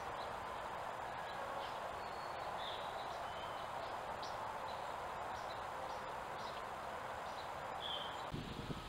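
Scattered short, high bird chirps, about ten over several seconds, over a steady background hiss.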